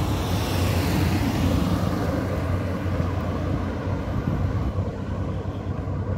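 Street traffic noise: a passing vehicle's hiss swells over the first couple of seconds and then fades, over a steady low hum.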